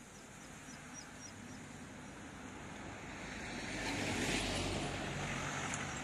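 A road vehicle approaching and passing close by, its engine and tyre noise swelling steadily to a peak about four seconds in, with faint high chirps from birds or insects behind it at the start.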